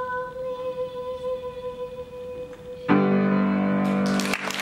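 A young girl's solo singing voice holding one long final note for about three seconds, cut off as the accompaniment strikes a loud closing chord that rings for about a second and a half; applause begins right at the end.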